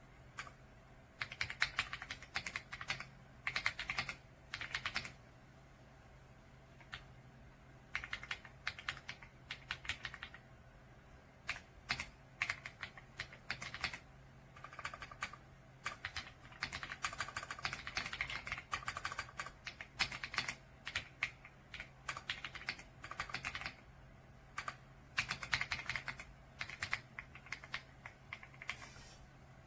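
Typing on a RedThunder K95 gasket-mount mechanical keyboard: rapid clacking keystrokes in bursts of a second or two, broken by short pauses.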